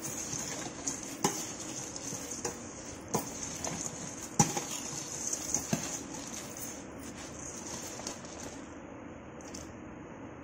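A steel ladle stirring and tossing masala puffed rice in a stainless steel bowl, with irregular clinks of metal on metal. The loudest clink comes about four seconds in, and the clinks thin out in the last few seconds.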